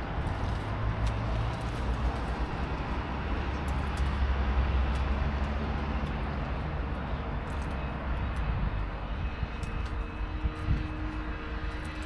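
Low engine rumble of passing motor vehicles, swelling about four seconds in, with a steady droning hum coming in during the second half.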